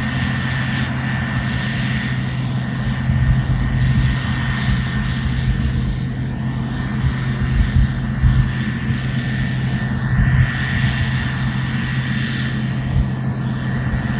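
Combine harvester running steadily while harvesting soybeans: an even engine drone with a steady high whine on top.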